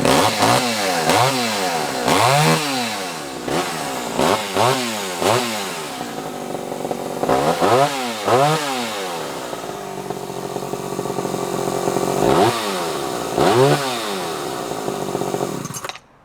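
Vintage 3.7 cubic inch Homelite-built Craftsman two-stroke chainsaw running at idle and revved in about ten quick throttle blips, each rising and dropping back. It shuts off suddenly near the end. It runs smoothly, starting and running fine.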